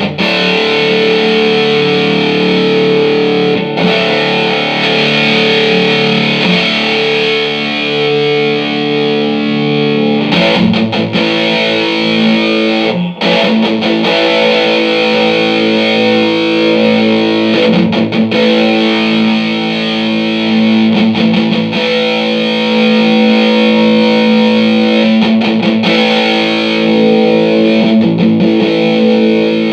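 Electric guitar played with distortion through a Mesa/Boogie Dual Caliber DC-3 amplifier, mostly held chords that ring out and change every few seconds, the amp working after a repair.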